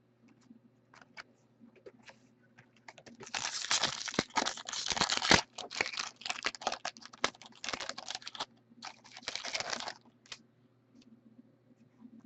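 Foil trading-card pack wrapper being torn open and crinkled, with cards clicking against each other as they are handled. Scattered light clicks at first, then dense crackling from about three seconds in until about ten seconds, then a few clicks again.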